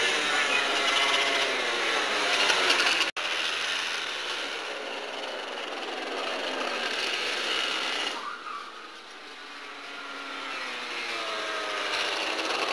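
Parilla two-stroke kart engines buzzing, their pitch rising and falling as the karts pass. The sound cuts off for an instant about three seconds in, dips lower past the middle, and swells again near the end.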